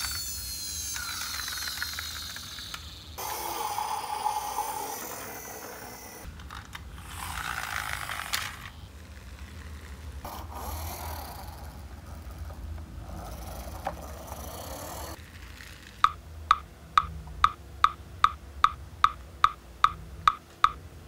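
Plastic toy trucks rolling across a tile floor, their wheels and gearing whirring in several short separate runs. Near the end comes an even series of sharp ticks, about two a second, over a faint steady hum.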